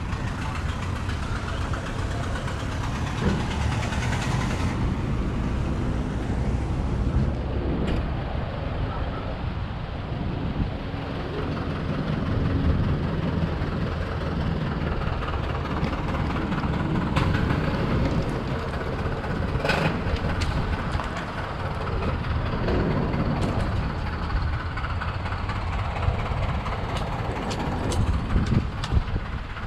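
Steady low rumble of vehicle engines and traffic, with a few short sharp clicks near the end.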